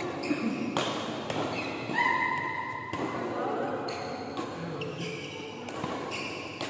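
Badminton rally in an echoing hall: several sharp racket-on-shuttlecock hits, roughly a second apart. A high squeak about two seconds in, likely a shoe on the court mat. Voices in the background.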